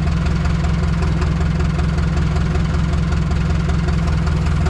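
A machine running steadily, giving a loud low hum with a fast, even pulse.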